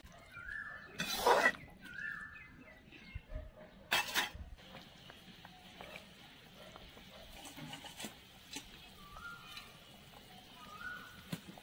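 A perforated metal skimmer scraping and clinking against a metal kadai twice, about a second in and again about four seconds in, as fried fish are put into the simmering curry. A short high call repeats faintly in the background.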